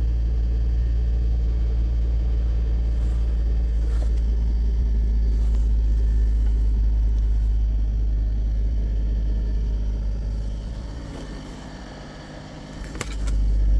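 2017 Kia Sportage engine running at a steady idle after a start in deep cold, a low even rumble. It dips quieter near the end, then comes back in just after a sharp click.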